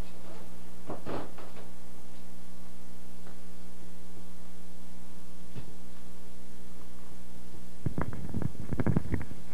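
Steady electrical mains hum with a few faint clicks, then a cluster of rustling and knocks close to the microphone in the last second and a half.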